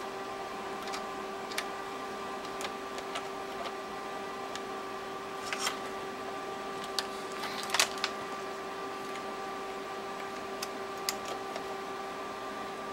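Scattered light clicks and taps from hands working an oscilloscope's front-panel knobs, buttons and probe, over a steady electrical hum with several constant high tones.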